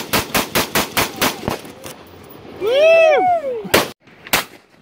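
AR-15 rifle fired semi-automatically in a rapid string of about five shots a second. Midway a loud cry rises and falls in pitch, then two more single shots follow.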